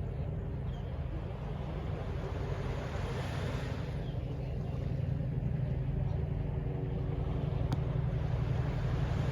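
Distant city traffic: a steady low rumble with a faint hum, swelling about three seconds in and growing slightly louder toward the end, with one brief click late on.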